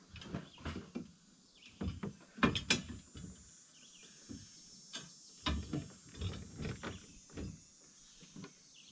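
Irregular clicks and knocks of bolts and a hand tool being worked into a 3-inch gold dredge's frame, loudest about two and a half seconds in and in a cluster a little past the middle.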